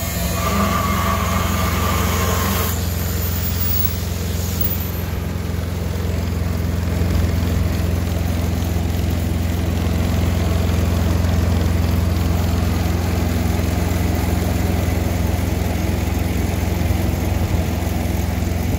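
Large engine idling steadily, a low even hum, with a faint higher whine that stops about three seconds in.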